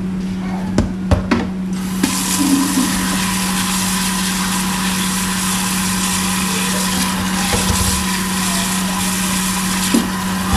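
A few knocks in the first two seconds, then tap water splashing steadily into a plastic basin in a stainless steel sink as hands rinse tomatoes, over a steady low hum.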